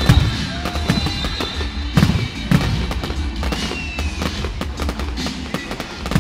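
Fireworks display: aerial shells bursting with sharp bangs and dense crackling. The biggest bangs come right at the start, about two seconds in and again half a second later.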